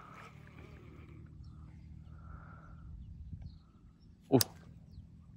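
A single quick swish of a fishing rod being cast, about four seconds in, over a quiet outdoor background.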